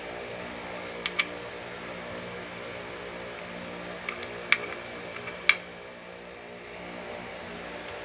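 A few sharp clicks from handling a cordless drill: two close together about a second in, then two louder ones around four and a half and five and a half seconds in. A steady low hum runs underneath.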